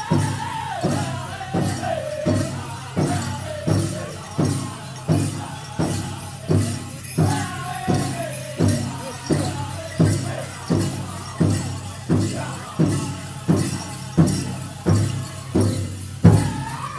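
Powwow drum group playing and singing a chicken dance song: a big drum struck in a steady beat about one and a half times a second under high sung voices, with jingling of bells on the beat.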